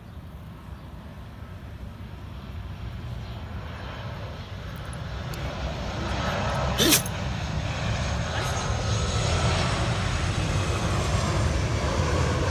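Rumble of an aircraft passing overhead, growing steadily louder, with a brief sharp knock about seven seconds in.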